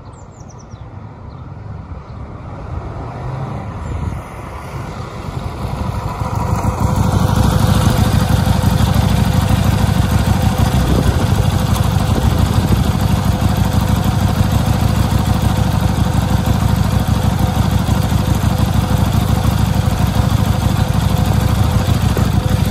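Buell 1125R's Rotax V-twin engine growing louder over the first several seconds as the motorcycle approaches, then running steadily close by.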